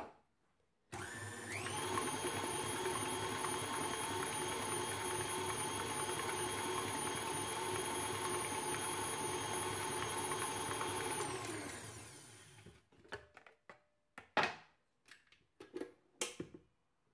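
KitchenAid Artisan stand mixer switching on, its motor stepping up to a higher speed and running steadily as it beats eggs and sugar, then winding down about twelve seconds in. A few short clicks and knocks follow.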